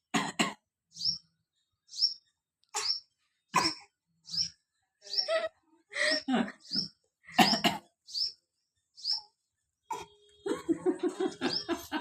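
A baby's short imitation coughs, one after another with pauses between them, alongside short high chirps that repeat about once a second. Near the end a faster, denser pulsing sound starts.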